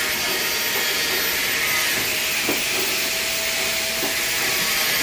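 TIG (GTAW) welding arc on TP304 stainless steel pipe, hissing steadily.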